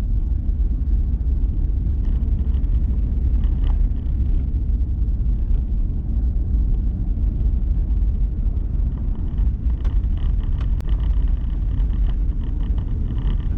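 Steady low road and engine rumble inside the cabin of a moving vehicle driving on snow-covered roads.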